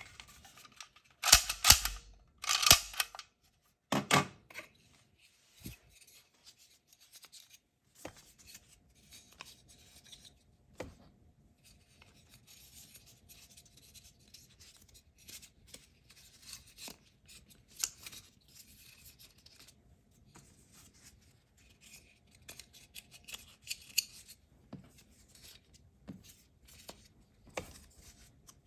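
Toy disc-shooter gun firing plastic discs onto a wooden floor in three short bursts of rapid clatter within the first few seconds. After that come soft clicks and rubbing as the plastic discs are picked up and pressed one by one into the gun's plastic magazine.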